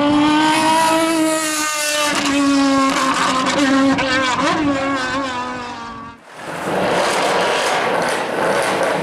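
Mercedes-AMG C63's V8 engine revved and held at high revs, its pitch wavering slightly. About six seconds in the sound cuts abruptly to a rougher, noisier engine sound.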